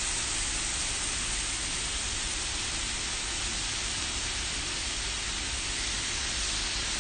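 Pork belly strips and hotdogs sizzling on an electric grill plate: a steady, even hiss of fat frying.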